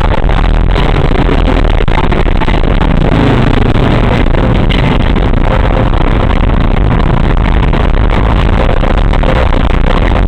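Ambulance running, a loud, steady, distorted rumble of engine and road noise, with no siren wail sounding.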